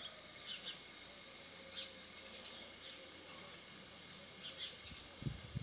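Faint outdoor background with small birds chirping now and then, and a few low thumps near the end.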